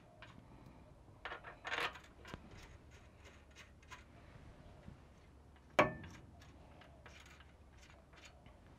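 Small steel parts clinking as cone washers and nuts are fitted by hand onto the studs of a Toyota solid-axle knuckle's top kingpin bearing cap. There are scattered light clicks, a few together early on and one sharp, louder metallic click about six seconds in.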